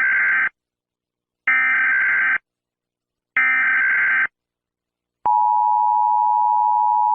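Emergency Alert System tones: the harsh digital screech of the header data bursts, each about a second long with about a second's gap between them. About five seconds in, the steady two-tone attention signal begins.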